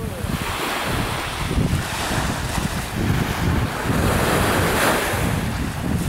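Small waves washing onto a sandy shore, with wind buffeting the microphone in an uneven low rumble. The wash swells about four to five seconds in.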